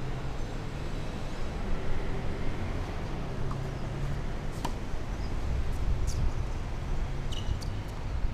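Steady low outdoor rumble of wind on the microphone and distant traffic, with one sharp tennis ball strike off a racket about four and a half seconds in. A few faint high chirps come later.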